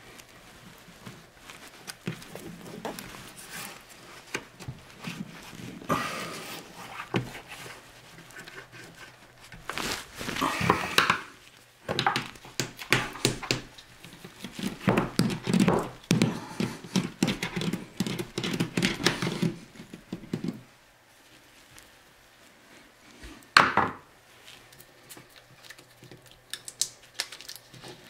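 Hands handling thin peel-and-stick metal backsplash tile: irregular crinkling, rubbing and scraping of the thin metal sheet against the wall, busiest in the middle. After a short lull there is a single sharp click about two thirds of the way through.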